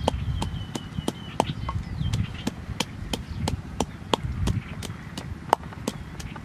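Wooden pestle pounding chillies and garlic in a mortar, a steady run of knocks about three a second, each a dull thud with a sharp click.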